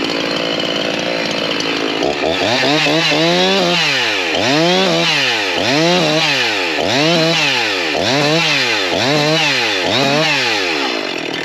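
Two-stroke chainsaw running, pressed with its chain against a safety boot. It runs steadily at first, then from about two seconds in its engine speed swings up and down about once a second as the chain bites and bogs against the boot without cutting through.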